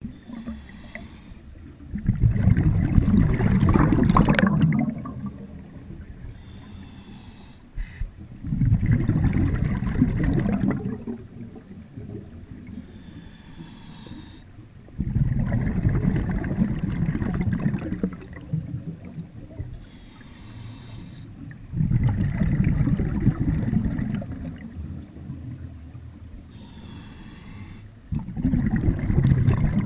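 Scuba diver breathing through a regulator underwater, heard close: a faint hissing inhale, then a loud rush of exhaled bubbles lasting two to three seconds. Five breaths, about six and a half seconds apart.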